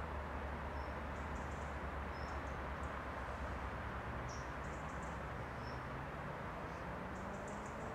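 Steady outdoor background hiss with faint, short, high-pitched bird chirps and twitters coming every second or so.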